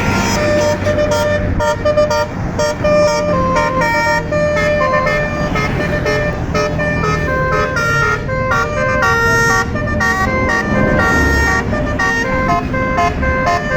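Tour bus 'basuri' telolet musical air horn, roof-mounted trumpets, playing a melody of short notes that step up and down in pitch, over the low running of the bus.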